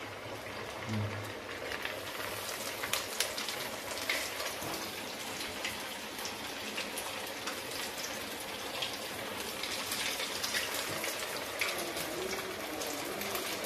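Semolina-coated cutlets deep-frying in hot oil in a kadai: a steady sizzle with many small crackles and pops.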